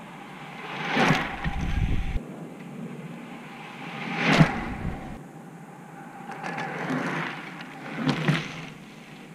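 A road bike rushing past close to the ground three times: each pass is a brief swell of tyre-on-asphalt and wind noise that rises and falls, about one, four and eight seconds in.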